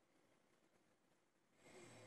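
Near silence, then one soft breath about one and a half seconds in.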